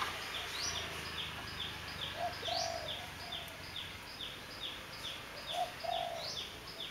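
Birds calling: one bird repeats short falling chirps about two or three times a second, while a dove coos twice.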